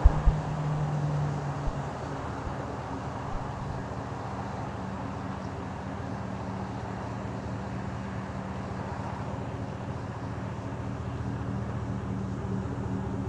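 A 2007 Chevrolet Silverado 2500HD pickup's engine idling steadily, heard from outside the truck, with a couple of thumps on the microphone at the very start.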